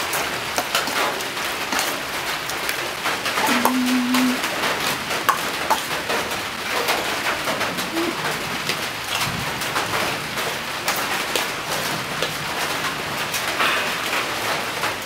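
A metal spoon scraping and clicking in a steel bowl while wet, raw squid pieces are stirred with seasoning, over a steady hiss. A brief low steady tone sounds about four seconds in.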